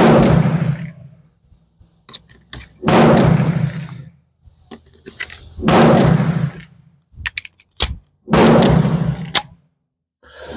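Four pistol shots about three seconds apart, each with a sudden crack trailing off over about a second of echo. Light clicks sound between them.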